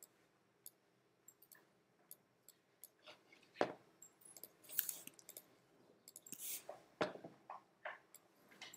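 Computer mouse clicking: scattered faint clicks and taps, with a few louder clicks and knocks in the middle.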